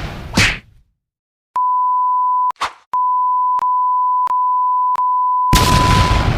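A steady high electronic beep tone sounds twice, first for about a second and then for about three seconds, broken by a short noisy burst between them. Near the end a loud explosion-like blast of noise starts over the beep.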